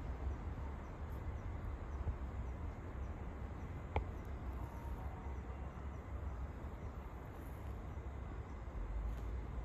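Outdoor ambience: a steady low rumble with faint background noise, and a single sharp click about four seconds in.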